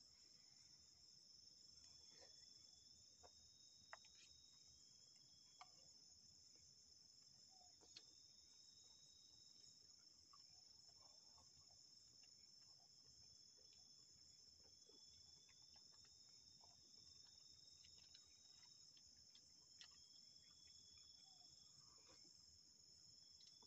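Faint, steady high-pitched insect chorus, with a few sharp clicks.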